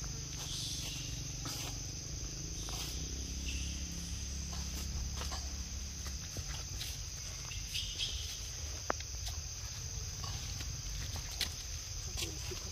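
Steady high-pitched drone of an insect chorus, with a low rumble during the first half and a few faint ticks.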